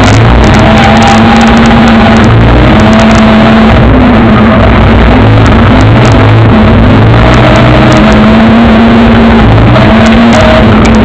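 BMW E30's engine heard from inside the cabin, loud enough to overload the microphone, held at high revs with several brief dips and recoveries in pitch through the bends of a hillclimb course.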